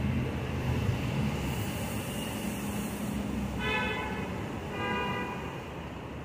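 Two-note door-closing chime of a New York City subway train, two short electronic tones, the second lower, about four and five seconds in, over the steady rumble of trains and the station.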